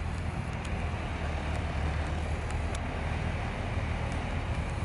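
Koleje Mazowieckie electric multiple unit rolling slowly along the platform: a steady low hum under running noise, with a few faint clicks.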